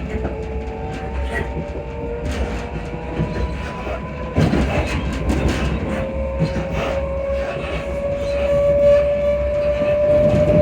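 Interior running noise of a class 334 electric multiple unit on the move. Sustained tones slowly rise in pitch, and there is a cluster of sharp clacks about four and a half seconds in as the wheels cross rail joints.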